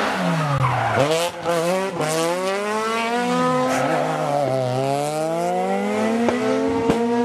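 Rally car engine at high revs. Its note drops as the car slows into a corner, then climbs again as it accelerates away; this happens twice, with a few sharp pops.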